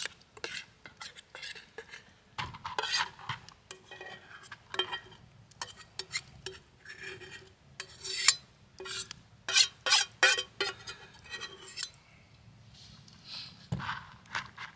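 A utensil scraping and stirring food in a cooking pan: a run of short, irregular strokes, easing off near the end.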